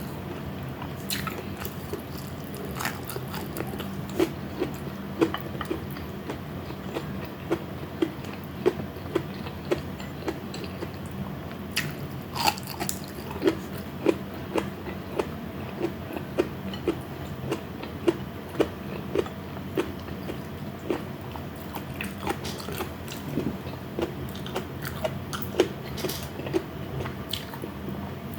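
Close-miked chewing of a meal of fried pork chop and vegetables: a steady rhythm of about two wet chews a second, with a few sharper crunchy bites.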